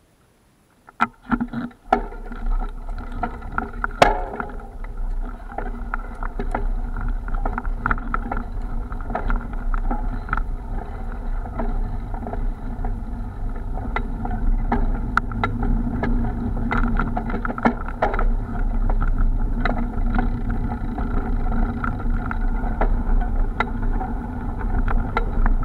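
Mountain bike riding over a rough dirt track, heard through a bike-mounted camera: a steady rumble with frequent knocks and rattles from the bumps. It starts about a second in.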